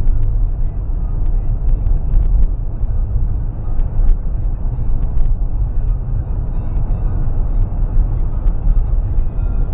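Fifth-generation Toyota 4Runner driving, heard from inside the cabin as a steady low road and engine rumble, with faint clicks and small rattles scattered through it.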